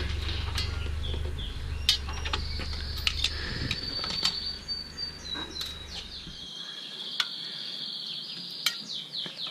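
Scattered light metallic clicks and clinks of pliers working the steel return springs and brake shoes of a drum brake. From about two seconds in, a high continuous chirping runs behind it.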